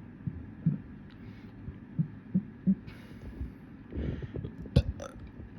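Small, short, low burps from a person, about five in the first three seconds, followed near the end by a louder, breathier stretch and a couple of sharp mouth clicks.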